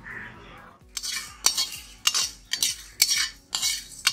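Metal spatula scraping and stirring whole spices roasting in a black iron kadai, about two strokes a second starting about a second in, the seeds rattling against the pan.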